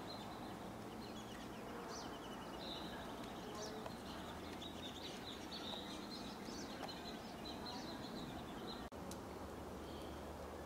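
Small songbirds calling in a pine forest: a busy run of short, high chirps over a faint steady hiss. The calls thin out after a brief break near the end.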